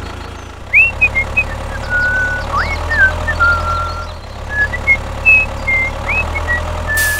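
Tractor engine idling with a low steady drone that shifts slightly about four seconds in. Short, high whistled chirps and upward sweeps sound over it throughout.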